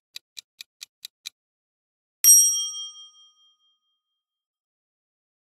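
Countdown-timer sound effect ticking about four to five times a second, stopping about a second in, then a single bright chime-like ding that rings out for about a second, marking time up and the results reveal.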